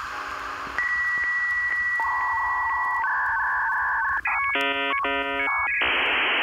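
Dial-up modem handshake: a steady high answer tone with regular clicks, then a warbling tone that switches between two pitches, a short run of chirping beeps, and a loud hiss of static about six seconds in.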